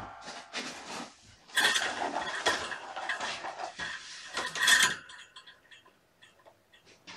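Plastic ball-track tower cat toy rattling and clattering as a kitten bats its balls around the tracks. The clatter picks up about a second and a half in, peaks near the end and then dies down to a few faint ticks.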